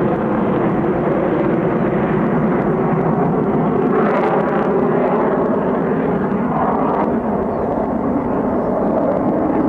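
Blue Angels F/A-18 Hornet jets flying over in formation: loud, steady jet engine noise that brightens about four seconds in.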